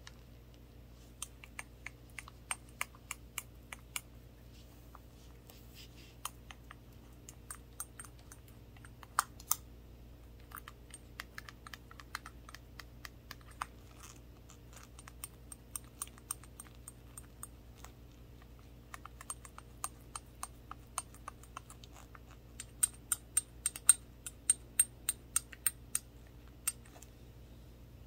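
Small shot glass with a handle tapped with toothpicks: quick runs of sharp, light clicks with short pauses between. The loudest taps come near the end.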